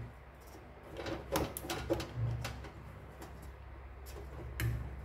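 Small plastic wire connector being worked loose and pulled off a bread maker's control board: a run of small clicks and scrapes, then a sharper click near the end.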